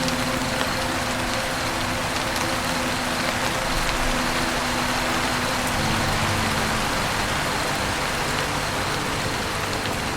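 Steady, unbroken rain falling on a roof, with faint sustained low tones of soft background music beneath it that shift about halfway through.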